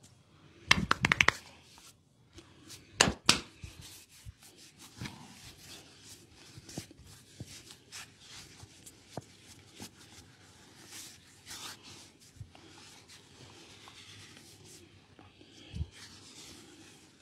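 Hands working a seated person's head, neck and shoulders in a quick massage: a rapid run of sharp snaps about a second in and two more loud sharp strikes around three seconds, then soft rubbing, small clicks and taps, and one dull thump near the end.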